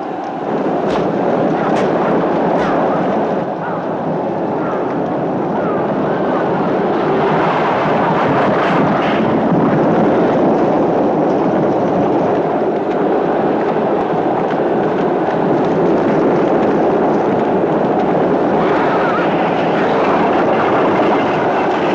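Racing chariots: horses galloping and chariot wheels rumbling on the track in a dense, steady din, with three sharp cracks in the first few seconds.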